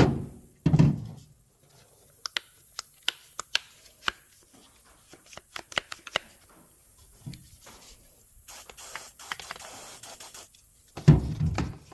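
Handling thumps and a string of sharp clicks and taps on a plastic door-handle assembly, then a hiss of about two seconds from an aerosol can of WD-40 being sprayed into the stiff handle, and another thump near the end.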